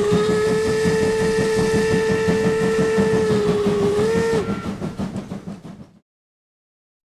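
Steam locomotive whistle blowing one long note for about four seconds, a brief upward lift just before it cuts off. Under it runs a rapid, even exhaust chuffing, which fades away about six seconds in.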